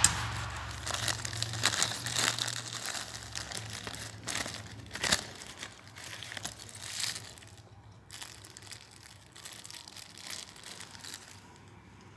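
Clear plastic packaging bags and a plastic mailer crinkling and rustling as they are handled, in irregular crackles that are loudest in the first half and thin out and grow quieter after about eight seconds.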